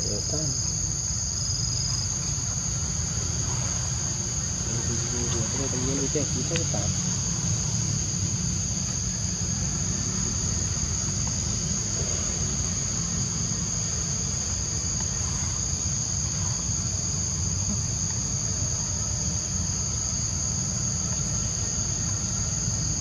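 Steady chorus of insects, a constant high-pitched buzz that holds unbroken throughout, over a low steady rumble.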